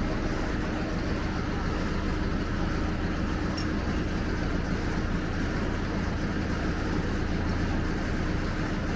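Steady mechanical hum: an even noise with a low drone and a faint higher steady tone.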